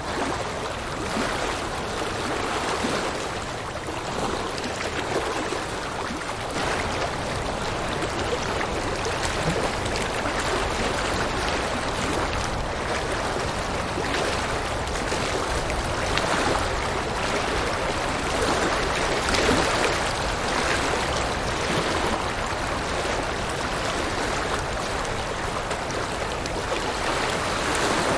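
River water rushing and splashing over rocks in a steady, continuous flow.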